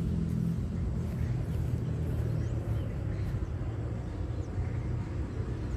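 Steady low engine hum.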